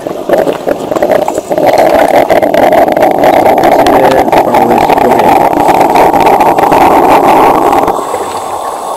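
The espresso side of a Krups 985 Il Caffè Duomo coffee maker, a steam-pressure boiler, is forcing hot water and steam out into the glass cup with a loud, steady rushing noise. The noise drops away about eight seconds in.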